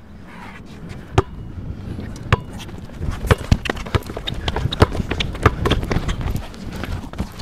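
Basketball dribbled hard on an outdoor hard court, with sneakers stepping and scuffing. The bounces and steps come quickly, several a second, from about three seconds in. A steady low rumble of wind on the microphone lies underneath.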